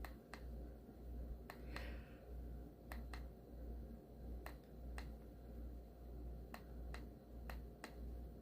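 Buttons on a ceiling fan light's remote control clicking as they are pressed, one or two short clicks about every second while the light cycles through its colours, over a faint low hum.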